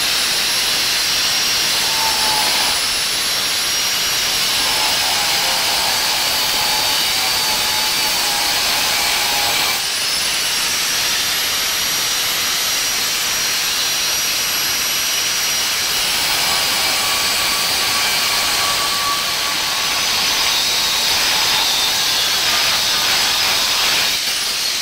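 Corded angle grinder with a cut-off wheel running at speed and cutting into a small engine's output shaft. Its high whine dips in pitch now and then as the wheel is loaded.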